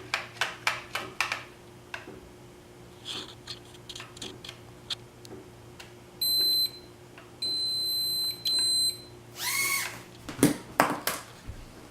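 A run of quick plastic clicks, then three high electronic beeps: a short one, one lasting about a second, and a shorter one. More clicks follow near the end. The beeps are of the kind an RC transmitter gives when it is switched on or tries to pair.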